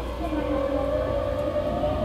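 Tokyu 1000 series train's Toyo GTO-thyristor VVVF inverter and traction motors whining as the train accelerates, the tone slowly rising in pitch over the running rumble, heard from inside the car directly above the motor equipment.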